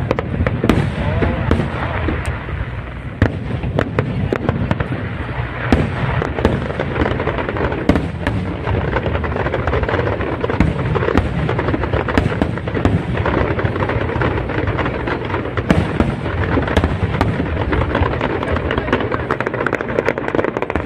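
Aerial fireworks display: a dense run of bangs and crackles as shells burst in quick succession, over a continuous low rumble.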